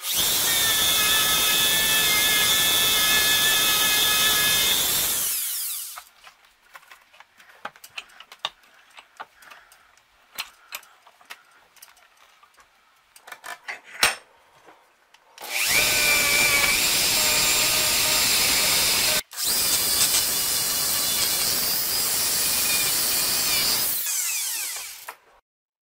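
Small handheld electric power tool running against a brass shotgun shell head, with a steady high whine over the motor noise. It runs for about five seconds, stops, and a stretch of small clicks and taps follows. Then it runs twice more, with a short break between the runs, and winds down near the end.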